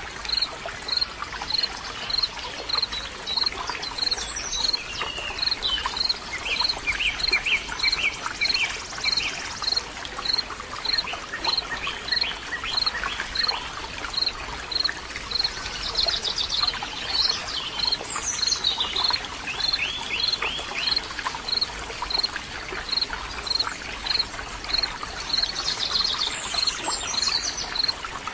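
Nature ambience of birds singing and chirping over running water, with a high chirp repeating evenly about twice a second.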